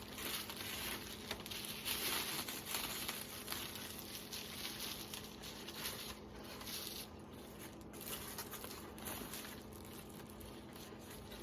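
Plastic packaging crinkling and rustling as the wrapped gun parts are handled and unpacked, busiest for the first few seconds and then tapering off.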